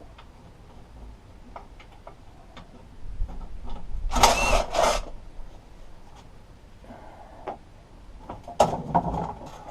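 Mechanical work on a Briggs & Stratton lawnmower's recoil starter housing as it is unfastened: scattered light clicks, then a loud harsh mechanical burst of about two seconds a few seconds in, and more clattering near the end.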